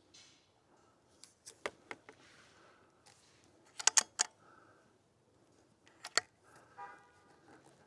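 Sharp mechanical clicks and clacks in small groups from handling an air rifle, the loudest cluster about four seconds in and another about two seconds later.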